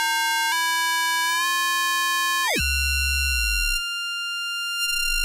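Arturia ARP 2600 V software synth's ring modulator multiplying VCO1 and VCO2, both set to the highest octave: a steady, bright cluster of several high tones. About halfway through, the tones glide quickly to a new set of pitches as the oscillator tuning is turned up, then hold steady.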